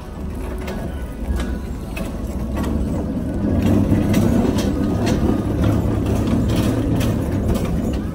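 Plastic car-shaped shopping cart rolling along a supermarket floor: a low wheel rumble that grows louder from about a second in, with scattered clicks and rattles.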